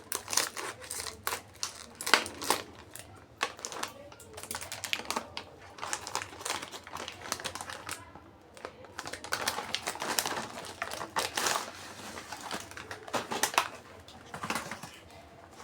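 Plastic snack packaging being handled, crinkling and rustling with many irregular clicks and taps.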